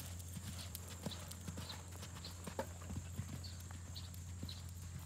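Horses' hooves striking the sand arena footing: irregular soft thuds, a few each second, over a steady low hum.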